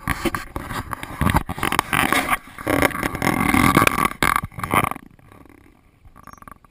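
Loud rubbing and bumping handling noise as the camera is pushed out of the car window, ending abruptly about five seconds in.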